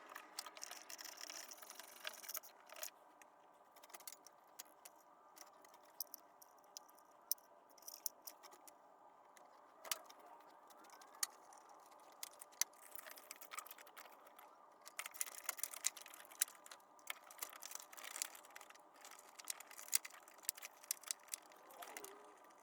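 Faint, scattered clicks and clinks of hand tools and metal parts being handled, denser for a few seconds near the end.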